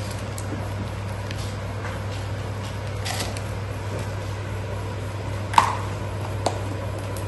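Steady low electrical-sounding hum, with a sharp tap about five and a half seconds in and a lighter one about a second later.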